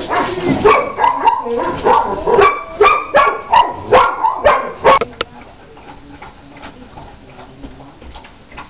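Two puppies play-fighting, barking in quick short bursts about twice a second, which stop about five seconds in.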